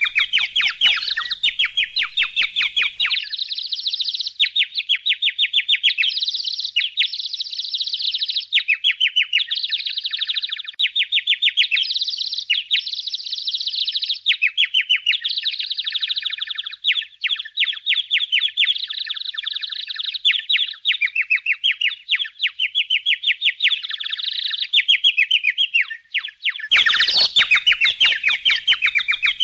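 A flock of budgerigars chattering and warbling, a dense, unbroken stream of quick high chirps. Some low background noise is underneath for the first few seconds, and again from about three seconds before the end.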